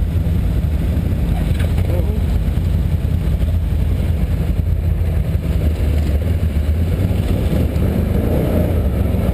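Can-Am Outlander 1000 ATV's V-twin engine running steadily as the quad rolls slowly along a gravel trail, a constant low rumble.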